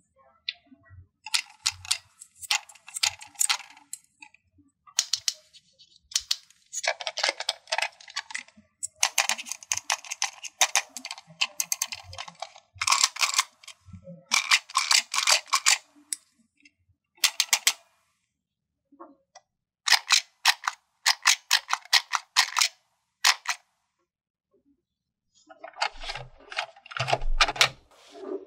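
Small plastic toy doctor-kit pieces being handled: bursts of rapid plastic clicking and rattling, each lasting a second or two, with short silent gaps between them. A few low knocks come near the end.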